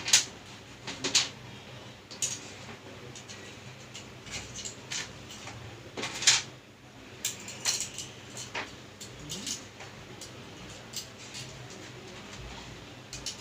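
Irregular small clicks and taps of metal and plastic parts being handled while carbon brushes are fitted into a mixer grinder motor, with the sharpest knocks near the start, about a second in and about six seconds in.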